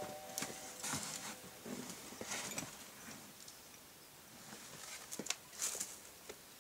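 Scattered faint scuffs, taps and rustles of climbing: shoes and hands scraping on the boulder's rock and harness gear shifting as a climber moves up, with a few sharper clicks, the sharpest about five seconds in.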